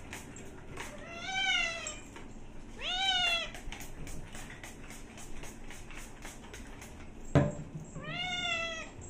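Black cat meowing three times, each meow under a second and rising then falling in pitch. Between the first meows comes a quick run of short hisses from a trigger spray bottle being pumped, and a sharp knock about seven seconds in, just before the last meow.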